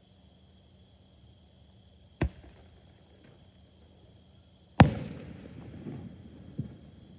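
Aerial fireworks shells bursting: a sharp bang about two seconds in, then a much louder bang near the five-second mark followed by a rolling, fading tail and a few smaller pops. Crickets chirr steadily in the background.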